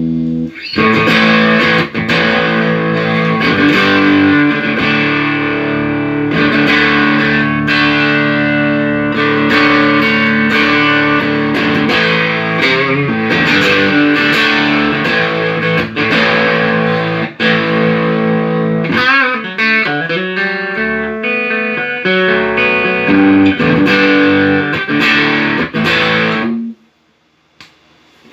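Electric guitar played through a Tech21 SansAmp GT2 amp-simulator pedal with a distorted tone, the pedal working again after a repair. Chords and single notes ring steadily, with wavering bent notes about two-thirds of the way through, and the playing stops shortly before the end.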